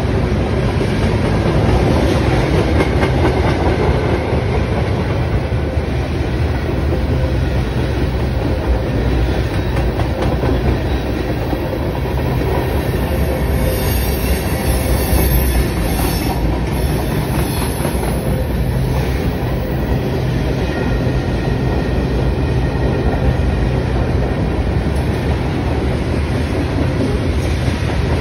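Freight train of boxcars, tank cars and covered hopper cars rolling past, its steel wheels on the rails making a steady rumble. A high wheel squeal joins in briefly about halfway through.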